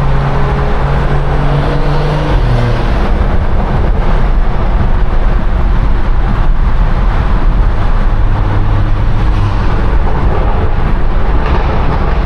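BMW 340i's turbocharged inline-six engine and exhaust droning at a steady cruise over heavy road rumble inside a road tunnel. The engine note drops in pitch about two and a half seconds in and sits lower again near the end.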